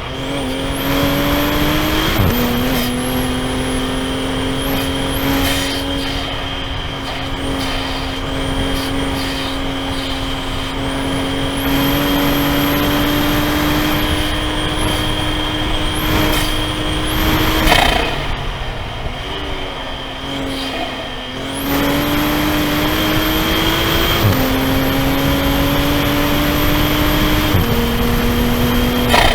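Toyota GR Supra (A90) engine pulling hard through the gears from inside the cabin, its pitch climbing steadily and dropping sharply at each upshift. About two-thirds through it falls away for a few seconds, off the throttle, then climbs again through two more shifts.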